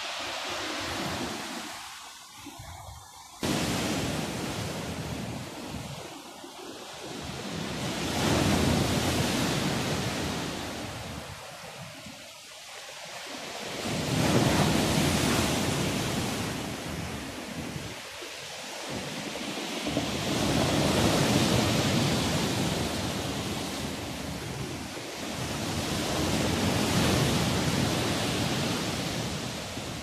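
Sea surf: waves breaking and washing up the shore, the rush swelling and ebbing every few seconds in about five surges. The sound jumps louder abruptly about three seconds in.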